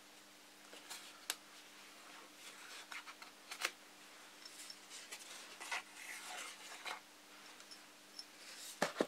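Small balsa plane shaving the edge of a thin clear plastic canopy: quiet, short separate scraping strokes with light handling clicks, and a sharper click near the end.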